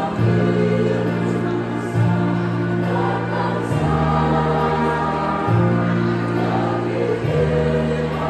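Women's choir singing, with low held accompaniment chords that change about every two seconds.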